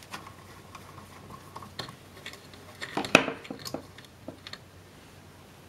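Light metallic clicks and scrapes of a screwdriver working the small screws of a circuit board inside a metal case. A louder clatter comes about three seconds in, as the screwdriver is put down.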